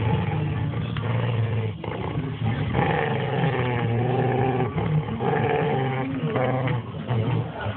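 Small dog growling almost without pause while tugging at a plastic PET bottle, with her head inside the bottle.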